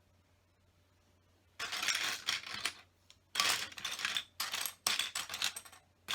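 Loose plastic LEGO pieces clattering as a hand rummages and sifts through a pile of them, in two bouts of rapid small clicks that start about a second and a half in, after a short quiet pause.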